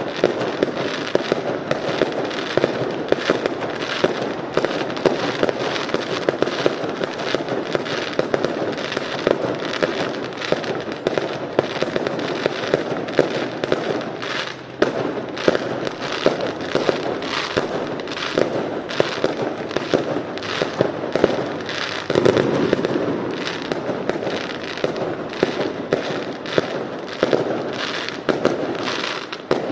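Fireworks going off in a rapid, continuous string of bangs and crackles, several every second without a break, a little louder about two-thirds of the way through.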